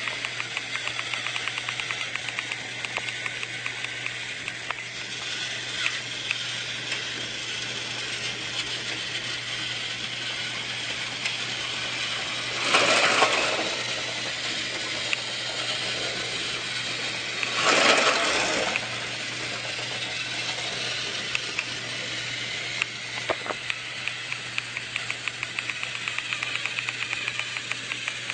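A small motor or mechanism running steadily with a fast, even rattle of clicks. Twice near the middle, a louder rush of noise lasts about a second.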